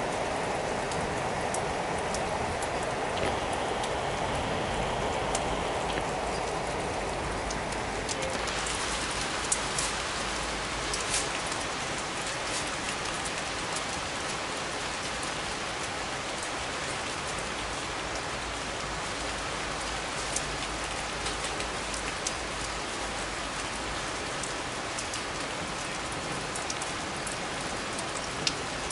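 Steady rain falling, with scattered sharp drops ticking close by. The hiss turns brighter about eight seconds in.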